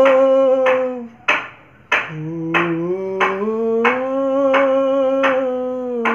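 A man singing long wordless held notes in a strong, high voice: one note held until about a second in, then after a short break a phrase that climbs in steps and is held to the end. A sharp click keeps a steady beat about every two-thirds of a second.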